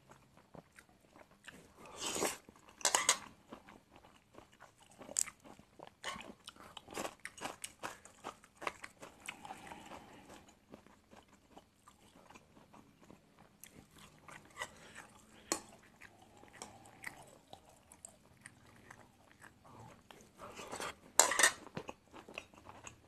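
Close-up chewing and small mouth clicks of a man eating soft stir-fried angled loofah with egg, with three louder noisy bursts, about two and three seconds in and near the end.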